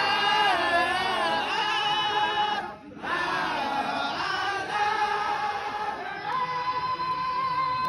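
A group of men chanting a Sufi zikr together, in drawn-out sung phrases that break off briefly about three seconds in.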